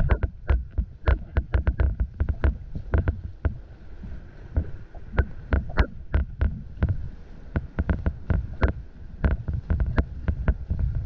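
Water splashing and sloshing with many irregular knocks and low thumps, from a caver moving through a flooded underground river.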